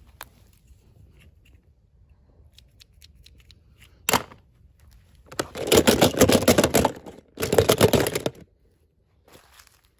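Packaging being handled during an unboxing: a few light clicks, one sharp click a little after four seconds, then two loud spells of crinkling and crackling, like wrapping being torn open or scrunched.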